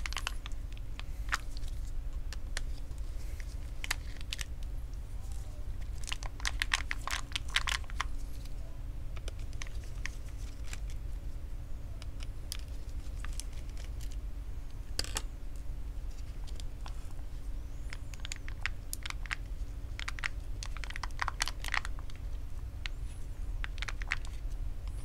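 Gloved hands prying and lifting a swollen lithium-ion laptop battery pack out of its bay: scattered clicks and plastic crinkling in short clusters, over a faint steady hum.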